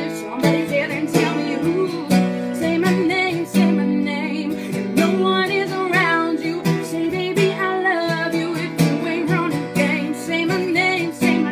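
A woman singing while strumming a cutaway acoustic guitar.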